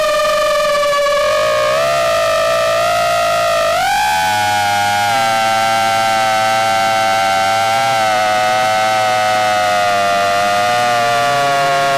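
Motors of a Krakatoa 5 FPV quadcopter whining in flight, heard from the onboard camera. The pitch steps up twice, about two and four seconds in, as the motors speed up, then holds with a slight wavering and dips a little near the end.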